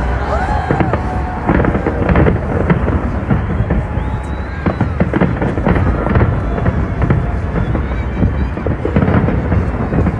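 Fireworks going off in quick succession: many sharp bangs and crackles, with a few whistling glides near the start.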